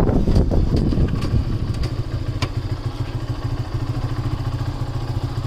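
Motorcycle engine idling with a steady low rumble, settling down in the first couple of seconds as the bike slows to a stop, with a few light clicks.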